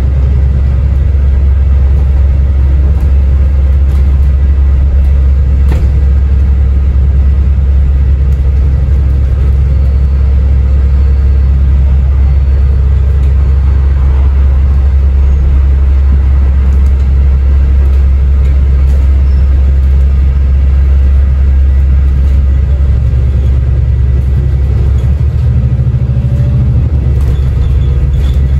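Cabin sound of an Alexander Dennis Enviro400MMC (E40D) double-decker bus on the move: a deep, steady diesel engine drone with road rumble, the engine note shifting near the end.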